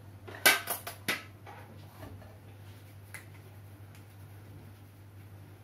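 Ceramic plate set down on a kitchen counter: a few sharp knocks and clinks in the first second, the first one the loudest, then one small click and a faint steady hum.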